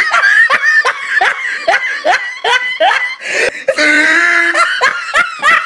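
Laughter: a quick run of short "ha" bursts, each falling in pitch, about three a second, then a longer held voice sound about four seconds in.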